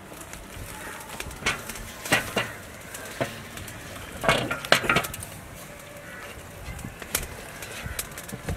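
Scattered metal clinks and knocks from a large aluminium idli steamer pot and its perforated plate as a whole marinated goat carcass is set down on it and pressed into place by hand, the loudest cluster about halfway through.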